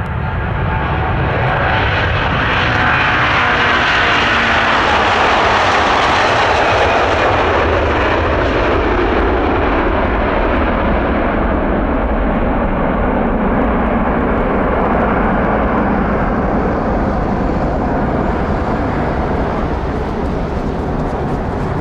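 Airbus Beluga XL's twin Rolls-Royce Trent 700 turbofans at take-off thrust as it rolls, lifts off and climbs away: a loud jet roar that builds over the first few seconds and drops in pitch as the aircraft passes. Later the higher hiss fades, leaving a deep rumble.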